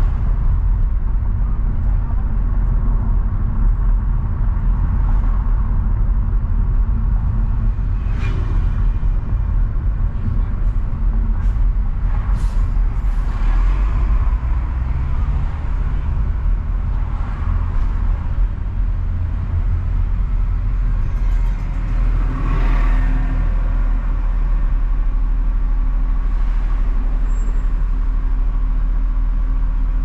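Car driving through city traffic: a steady deep road rumble, with a few short hisses and a louder brief burst about two-thirds of the way through, after which a steady hum holds.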